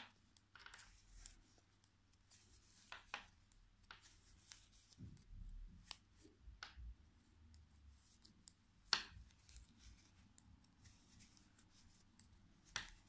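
Knitting needles clicking faintly against each other now and then, with soft yarn rubbing, as knit stitches are worked. There are a few sharper clicks, the loudest about nine seconds in and another near the end.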